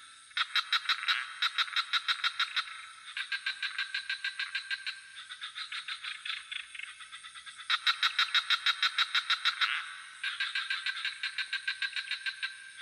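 Frogs calling in a chorus: trains of rapid pulsed croaks, about six or seven pulses a second, each run lasting around two seconds, with several callers overlapping and taking turns. A steady high hiss runs underneath.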